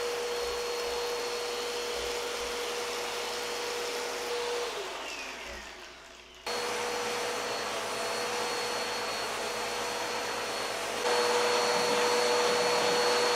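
Vacuum cleaner running with a brush nozzle on its hose. About five seconds in, its motor whine falls in pitch and fades as it winds down. A second or so later it is abruptly running again, a little louder near the end.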